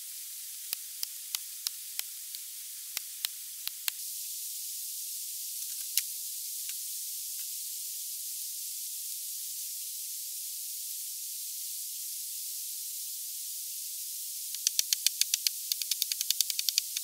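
Hatchet chopping into a log: scattered sharp knocks in the first few seconds, then a fast run of loud strikes, several a second, near the end. A steady hiss lies underneath throughout.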